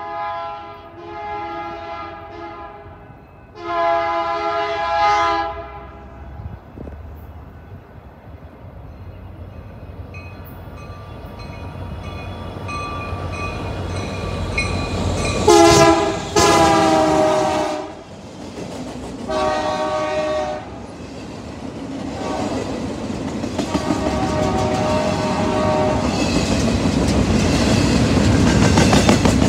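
BNSF diesel freight locomotives sounding their multi-tone air horn in a series of blasts: three in the first few seconds, then four more from about halfway through. Under the horn the engine rumble grows steadily louder as the train approaches and passes, ending in the rushing clatter of container well cars going by.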